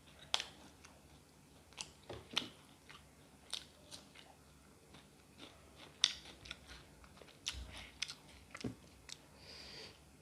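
A person eating fried chicken close to the microphone: irregular crunchy bites and wet chewing clicks.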